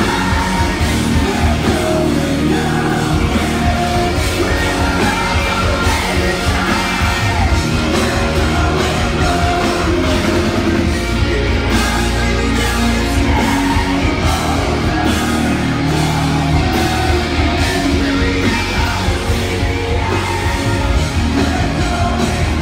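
Live heavy rock band playing loudly, with drums, distorted guitars and sung and shouted vocals.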